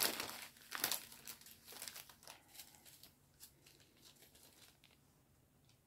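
Small plastic bags of diamond painting drills crinkling and rustling as they are handled: a run of short rustles in the first two seconds that thins out to a few faint clicks.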